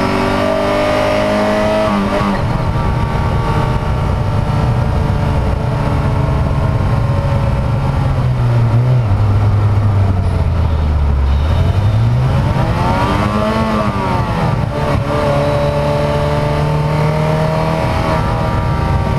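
Ferrari Mondial's V8 engine with a Magnaflow muffler, heard from the engine cover while driving. It pulls up in revs and changes gear about two seconds in, cruises steadily, drops in revs in the middle, then rises to a brief peak and falls back before settling into a steady cruise.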